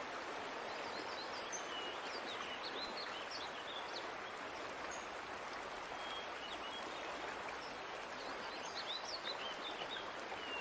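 Steady rush of water from a shallow rocky stream, with small birds chirping in short calls again and again.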